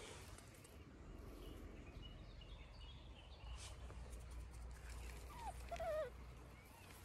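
A puppy gives a short, high whine that wavers and falls in pitch, about five seconds in; it is the loudest sound. Faint bird chirps come earlier, over a low rumble.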